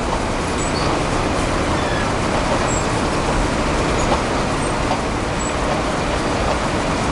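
Steady loud rushing background noise with no clear single source, with a few faint short high chirps.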